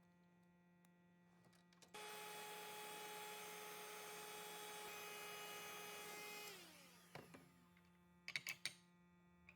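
A small electric power tool runs at a steady speed for about four and a half seconds, then is switched off and spins down, its whine falling in pitch. A few sharp clicks follow near the end.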